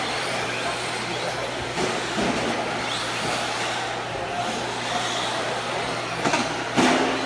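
Brushless electric 1/10-scale RC monster trucks running on a dirt track: a steady whirring hiss of motors and tyres over a constant low hum. A few sharp knocks come near the end.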